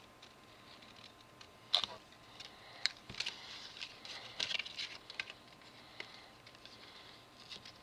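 Paper transfer templates being cut out by hand: a scattering of faint sharp clicks and short scratchy rasps, with the busiest stretch between about two and five seconds in.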